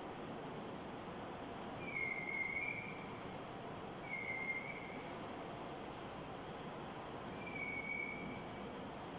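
Chalk squeaking on a blackboard as curved lines are drawn: three high-pitched squeals of about a second each, roughly two, four and eight seconds in, with a few fainter short squeaks between them.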